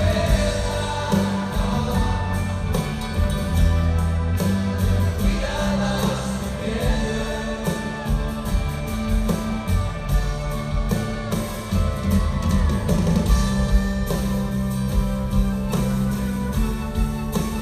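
Live rock band playing with several singers, guitars and drum kit, heard from the audience in a concert hall.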